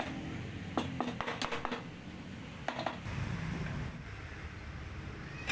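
A handful of light clicks and knocks in quick succession in the first two seconds, one more a little later, over a low steady rumble.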